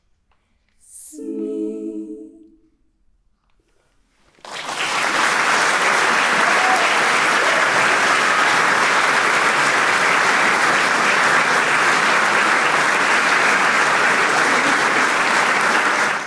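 An all-female klapa ensemble sings a short closing chord a cappella, then after about two seconds of quiet the audience starts applauding and keeps up loud, steady applause to the end.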